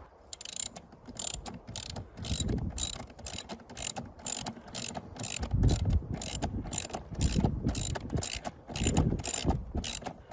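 Hand ratchet clicking as a retaining screw is turned, in a quick uneven run of about three clicks a second, with occasional dull knocks from handling the tool and the door panel.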